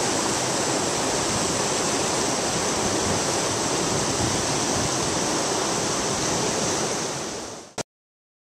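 Shallow river rapids rushing steadily over rocks. The sound fades out about seven seconds in and ends with a short click.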